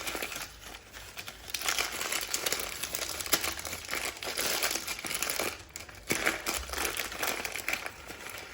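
A spice packet crinkling and rustling continuously, with small crackles, as cloves are picked out of it by hand.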